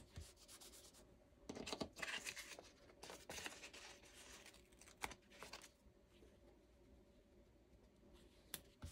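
Faint paper handling: a sticker sheet rustling and stickers being peeled off it and pressed onto a planner page, in a few short spells, with a sharp tap about five seconds in.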